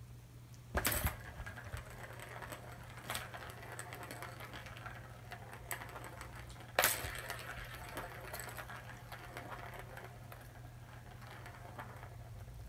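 A cat toy being batted by kittens: sharp knocks about a second in and again about seven seconds in, with lighter clicks and rattling between them, over a steady low hum.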